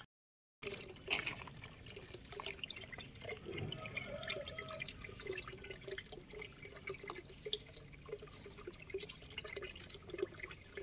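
After half a second of silence, a stream of water pours and splashes into an animal's drinking tub as a bovine drinks from it.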